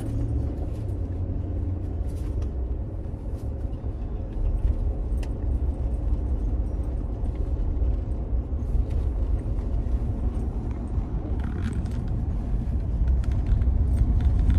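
Cabin noise inside a moving SUV: a steady low road-and-engine rumble, with a few light clicks and knocks now and then.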